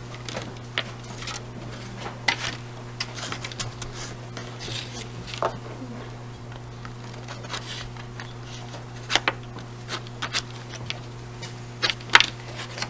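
The painted edge of a card being pressed and scraped across watercolor paper: short, scratchy scrapes and taps at irregular intervals, over a steady low hum.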